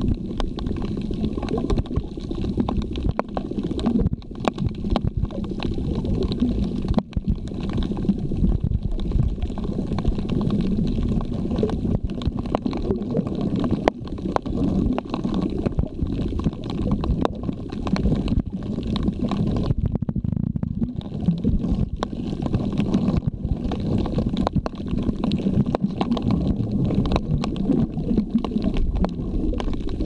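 Muffled underwater rumble and gurgle of water moving around the microphone, with scattered sharp clicks.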